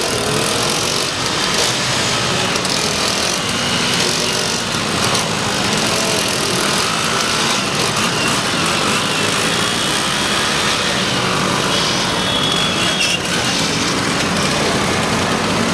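A pack of vintage Vespa scooters riding together, their small two-stroke engines running steadily and loud at close range.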